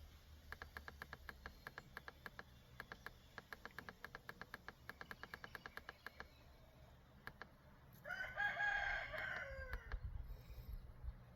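A run of rapid light clicks, several a second, like buttons being pressed, for about six seconds; then, near the end, a rooster crows once, about two seconds long, dropping in pitch as it ends.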